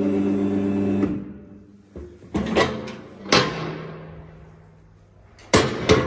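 Baler's electric motor humming steadily and shutting off about a second in, followed by sharp metal clanks and rattles from the steel door and its latch handle, a few in the middle and a quick cluster near the end.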